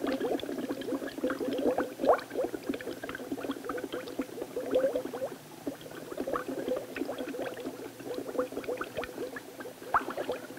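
Gas bubbling up through motor oil in a tall glass cylinder, fed by a hose from a pressurized metal canister: a rapid, continuous gurgle of small bubbles as the oil churns into foam.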